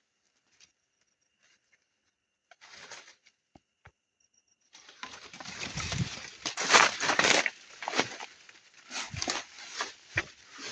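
Rustling and crunching in dry undergrowth. It starts in sparse crackles and becomes a busy, irregular run of rustles about halfway through. A faint steady high tone sits under the quiet opening.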